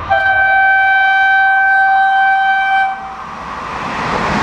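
Horn of a Trenitalia Minuetto passenger train sounding one long, steady blast of about three seconds. As the horn stops, the train's running noise builds as it approaches and passes close by.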